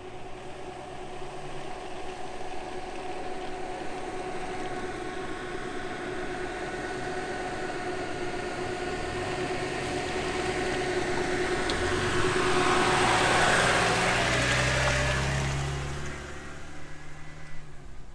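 4x4 off-road vehicle's engine running at steady revs with a steady whine, swelling into a loud rushing, straining sound about twelve seconds in, then easing off a few seconds before the end.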